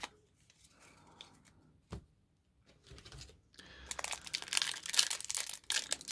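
A couple of faint taps, then from about four seconds in the foil wrapper of a 2000 Donruss football card pack crinkling and tearing as it is ripped open.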